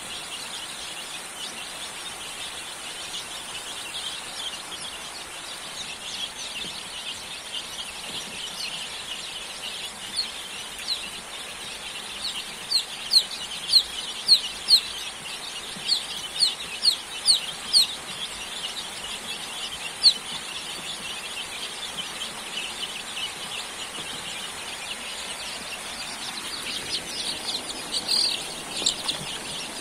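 A brood of young chicks peeping continuously in a dense chatter. About halfway through, a few chicks give a run of louder, short peeps that slide downward in pitch, with a last loud one a couple of seconds later.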